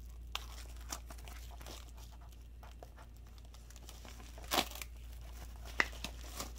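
Clear plastic shrink wrap crinkling and tearing as it is peeled by hand off a Blu-ray case, with scattered crackles and one louder rip about four and a half seconds in.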